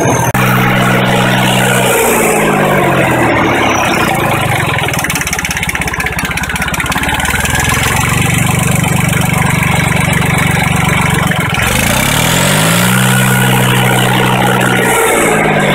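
Turbocharged Jinma 254 tractor's 1.5-litre Y385 three-cylinder diesel running, its engine speed dropping about two seconds in and running unevenly for a few seconds. It then holds steady, rises again near the end and falls back once more.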